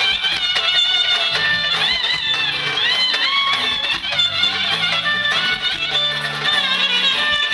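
Traditional folk dance music: a lead instrument plays a busy, ornamented melody full of sliding notes over a steady bass line and beat.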